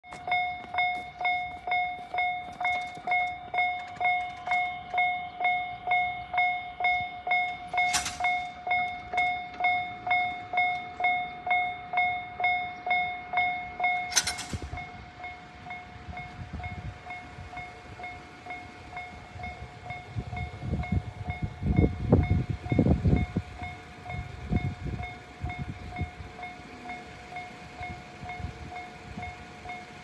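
Japanese railway level-crossing warning bell, the JR standard electronic tone, dinging about twice a second. About 14 seconds in it switches to a much quieter, softer tone, the sound of a tone-changing crossing, and keeps dinging. Low rumbling swells up and fades between about 20 and 25 seconds.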